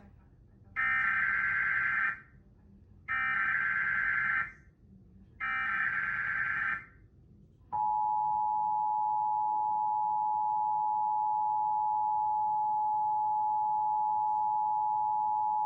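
Emergency Alert System SAME header: three bursts of digital data tones about two seconds apart. They are followed by the EAS two-tone attention signal, held steady for about eight seconds, which opens a Required Monthly Test broadcast.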